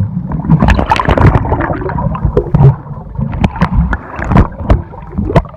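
Sea water sloshing and splashing against and around a small boat, with many short irregular splashes over a low rumble.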